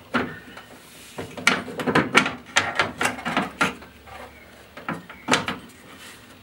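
Window motor and regulator of a Mk1 Mazda MX-5 (Eunos Roadster) being twisted and worked out through the steel door's access hole: a run of knocks, clatters and scrapes of metal against the door's inner panel, thickest between about one and four seconds in, with one more loud knock near the end.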